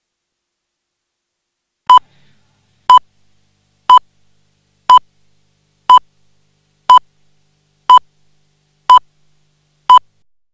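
Nine short electronic beeps of one steady, fairly high pitch, evenly spaced one per second, like a broadcast countdown leader at the head of a programme tape.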